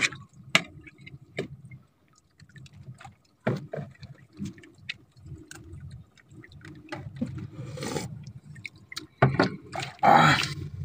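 Spoons clicking and scraping against ceramic bowls and plates during a meal of rice and soup, with scattered light clinks and a louder burst of noise near the end.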